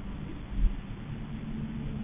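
Car engine running with a steady low hum, with one dull low thump about half a second in.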